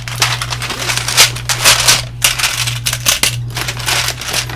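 Clear plastic bag crinkling and rustling irregularly as hands pull plastic IC chip tubes out of it, with a few sharp clicks of the tubes knocking together. A steady low hum runs underneath.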